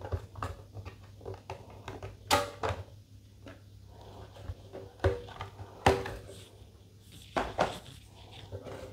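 Knocks and clunks of a small sheet-iron cassette deck being lifted off a metal phone stand and set down, about half a dozen separate knocks.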